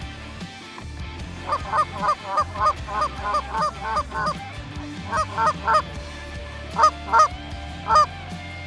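Goose honks, each call breaking sharply up and then down in pitch: a quick run of about a dozen starting a second and a half in, then shorter groups of three, two and one, over a steady low rumble.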